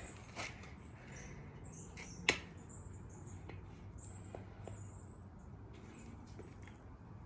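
Faint squeaking of a BMX tire's rubber bead being worked off the rim, with one sharp click about two seconds in and a few lighter ticks.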